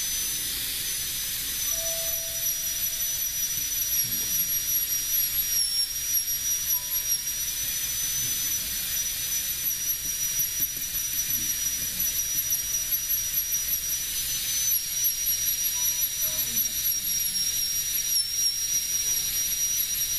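NSK Presto air-turbine carving handpiece running with a steady high-pitched whine, like a dentist's drill, as its bit works the wood of a rifle buttstock. The pitch dips slightly now and then as the bit bears on the wood.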